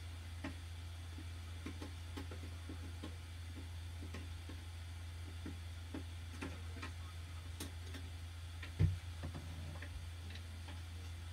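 A steady low hum with faint, irregular light ticks, and one louder thump about nine seconds in.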